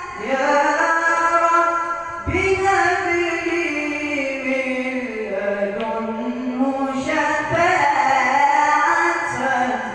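Islamic ibtihal (devotional supplication) sung by a male munshid in long, ornamented notes. The voice slides slowly down in pitch within each phrase, and a new phrase begins about two seconds in.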